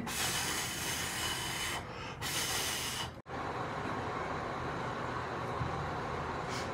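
Steady airy hiss with no distinct events. It dips briefly about two seconds in, cuts out sharply just after three seconds, then carries on as a duller, even hiss.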